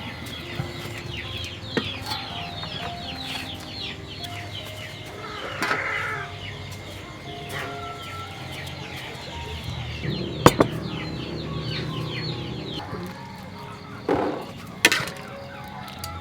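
Chickens clucking with chicks peeping, many quick high falling cheeps. A few sharp knocks stand out in the second half.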